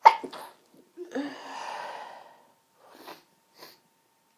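A woman's sharp sneeze right at the start, followed by a long breathy, partly voiced exhale, then two short sniffs about three seconds in, in the middle of a sneezing fit.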